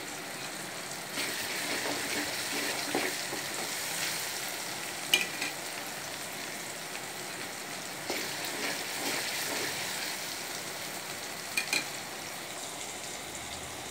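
Garlic, onion and tomato masala sizzling in hot oil in a metal kadai as it is stirred, with turmeric powder just added. There are two sharp taps, about five seconds in and again near the end.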